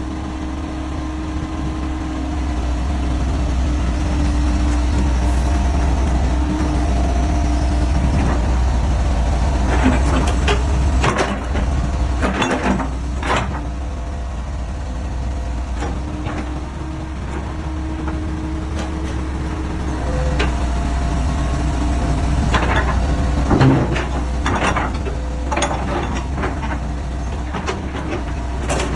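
Hitachi EX120 crawler excavator's diesel engine running steadily with a deep low rumble. Sharp knocks come in two bunches, about a third of the way in and again later.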